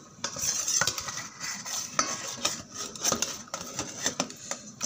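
A pot of spiced fish broth for pindang at the boil, with many irregular metallic clicks and clinks against the pot.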